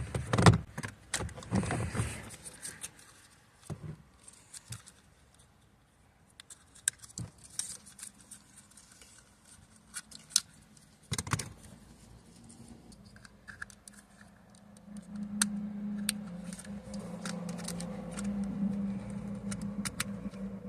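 Scattered clicks, taps and light rattles of plastic door trim and a power-window switch being pried off and handled. A low steady hum comes in about three-quarters of the way through.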